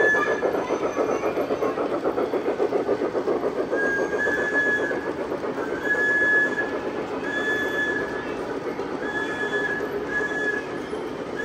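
Model train running on its track with a fast rhythmic clatter, about four beats a second. Over it, a short high tone repeats roughly every second and a half.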